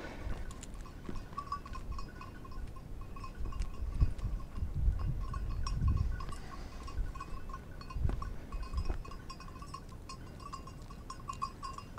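A hunting dog's bell jingling in quick, even rings as the dog works through the brush. Low thumps and rustles, loudest about four to six seconds in and again near eight seconds.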